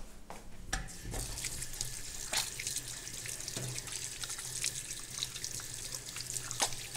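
Kitchen tap running into the sink as flour is washed off hands under it, with small splashes; the water comes on about a second in.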